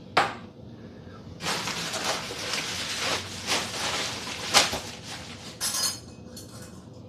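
A sharp click, then several seconds of rattling and scraping with light clinks as seasoning is shaken out of a spice container into a bowl.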